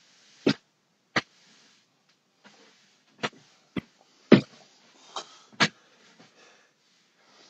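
Broom sweeping a floor: about seven short, sharp brushing strokes at an irregular pace, with faint scraping between them.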